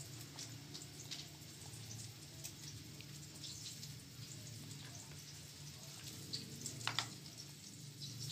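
Faint wet clicks and taps of fingers handling food on a tortilla, over a low steady hum, with a few sharper clicks near the end.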